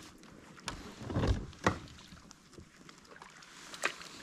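A largemouth bass being netted beside a kayak: a short splashing rush about a second in, then sharp knocks of the net and gear against the hull, one just after and one near the end.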